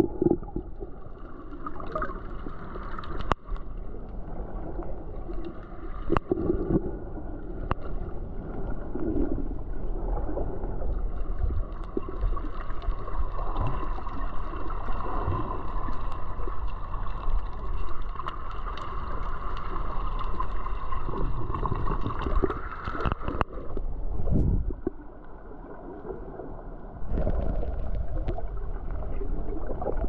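Underwater ambience picked up by a submerged camera: a continuous gurgling water hiss with a steady hum, a few sharp clicks, and a brief quieter stretch about three quarters of the way through.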